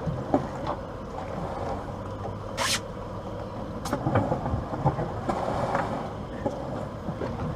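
Boat engine running steadily at low revs, with a few short knocks and a brief hiss about two and a half seconds in.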